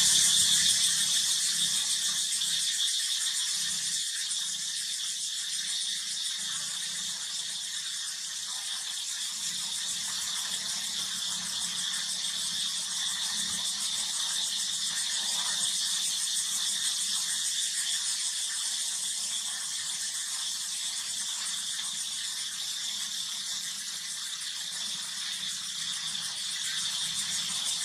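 Steady, high-pitched insect drone with a fine rapid pulse, unbroken throughout, over a faint low hum.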